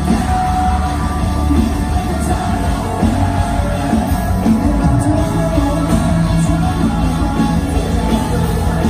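Rock band playing live and loud: singing over electric guitars, bass and drums.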